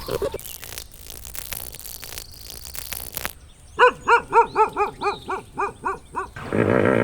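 An animal calling in a quick run of about ten short, rising-and-falling cries, about four a second, after a few seconds of rustling noise.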